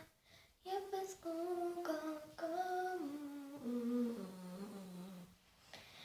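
A young girl humming a slow tune. She holds steady notes that step down in pitch toward the end, after a brief pause at the start.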